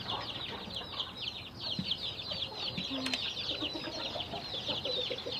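Many baby chicks peeping continuously in a dense chorus of short, high, falling chirps, with an adult hen's lower clucks now and then.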